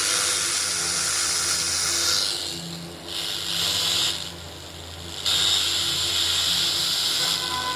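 Old Philips RR286 radio-cassette recorder's speaker hissing with FM static as it is tuned across a weak signal, over a steady low hum. The hiss drops away twice in the middle and comes back.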